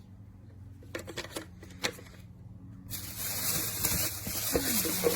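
Packaging being handled: a few sharp clicks and crinkles, then from about three seconds in a steady, loud rustling hiss as the material is pulled or rubbed.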